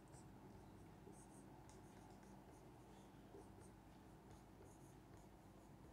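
Faint squeaks and scratches of a marker pen writing on a whiteboard, in many short strokes.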